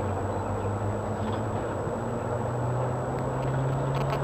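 Shanghai Maglev train heard from inside the passenger cabin as it accelerates away from the station: a steady rushing cabin noise, with a low hum that slowly rises in pitch as the train gathers speed.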